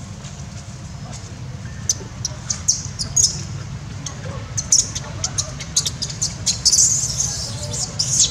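Long-tailed macaques squealing: a run of short, high-pitched shrieks that starts about two seconds in and grows thicker near the end, over a steady low rumble.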